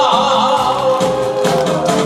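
A man singing a Korean song into a microphone over musical accompaniment, with a long note held through most of the moment.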